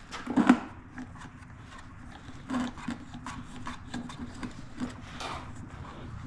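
A garden hose and its plastic fittings being handled and coupled to the pressure washer's water inlet: scattered knocks and clicks, the loudest about half a second in, over a faint steady hum.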